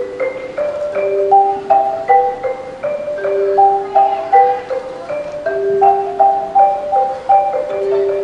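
Marimba playing a melody of quick struck notes, with longer notes held in the lower part about every two seconds.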